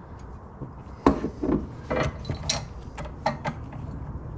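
Metal coilover parts handled on a wooden workbench: an aluminium camber plate set down on the wood with a knock about a second in, then several lighter clicks and clinks of metal parts against each other and the bench.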